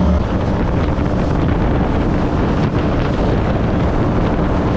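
Twin-V8 jet boat under way: wind buffeting the microphone and water rushing past, with the engines' steady drone faint underneath.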